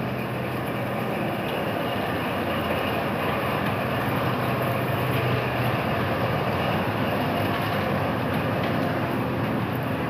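Supermarket background noise: a steady rumble and hiss with a low hum that fades about six seconds in.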